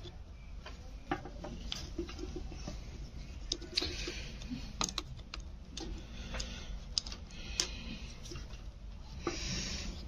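Screwdriver working screws out of a pedestal fan's metal motor housing: irregular small metal clicks and scrapes, over a steady low hum.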